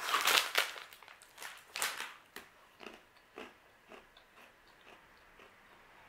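Crunching as a crisp protein schiacciatina cracker is bitten and chewed: loud crackly crunches in the first second, then single chewing crunches that fade steadily.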